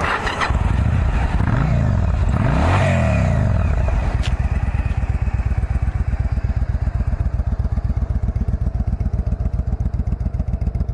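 A 2008 Yamaha V-Star 1100's carbureted air-cooled V-twin on its factory exhaust, just fired up: revved up and back down twice in the first few seconds, then settling into a steady, evenly pulsing idle.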